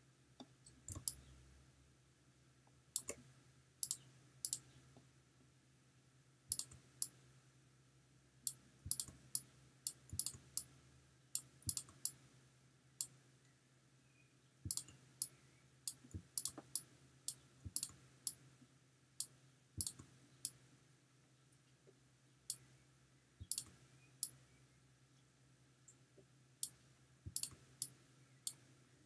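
Computer mouse clicking at irregular intervals, in single clicks and quick pairs or clusters, while clone-stamp strokes are laid down. A faint steady low hum runs underneath.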